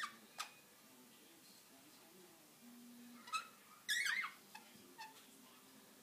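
Budgerigars chirping: a couple of short sharp chirps at the start, a louder, rougher chatter of calls a little past the middle, then a few brief chirps near the end.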